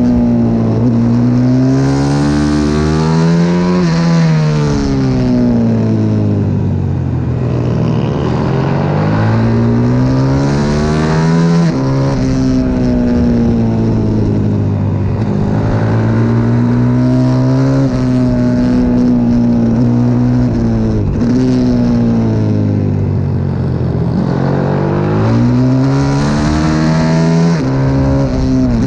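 CW 140 pit bike's single-cylinder four-stroke engine heard from onboard, revving hard and pulling up through the gears, its pitch climbing and then dropping sharply again and again as the rider shifts and backs off for corners.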